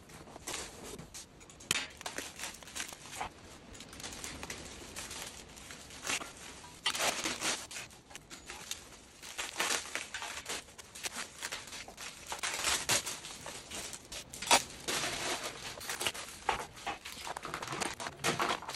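Foam packing sheets and plastic wrap being cut with a utility knife, torn off and crumpled away from steel dolly parts, in irregular rustling bursts with a few sharp clicks and knocks of metal parts being handled.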